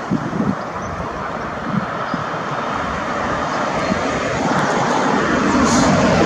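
Airbus A321neo airliner landing, its jet engines a steady rumbling roar that grows louder over the second half. A few brief low thumps come near the start.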